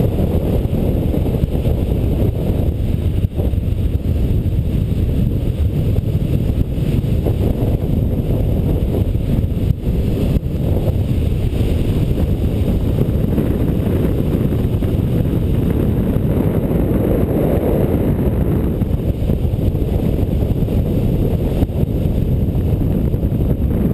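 Steady, loud wind rush buffeting the microphone of a camera mounted on a hang glider's wing in flight, from the airflow at flying speed.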